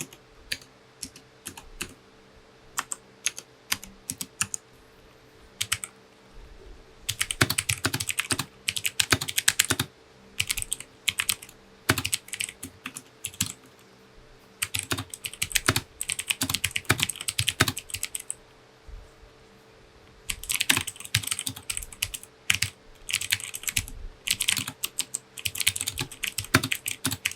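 Ajazz i610t mechanical keyboard with Huano blue switches being typed on: sharp, clicky keystrokes, single presses spaced out at first, then several fast runs of typing.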